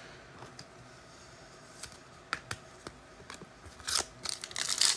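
Scattered light clicks and taps from trading cards and packs being handled, then a foil card pack wrapper starting to crinkle in the last second.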